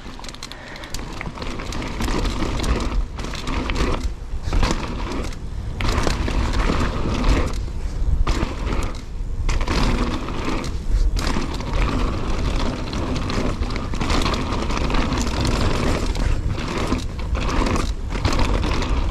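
Wind buffeting the microphone over the noise of mountain bike tyres rolling fast over a dirt trail, with a heavy uneven rumble and brief dips throughout.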